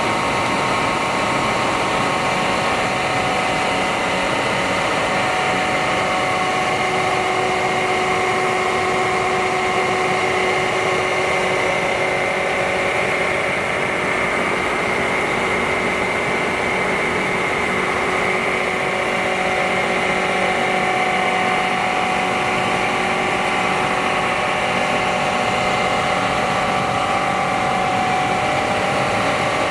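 Air compressor running steadily: a dense mechanical hum with a constant high whine on top, unchanging throughout.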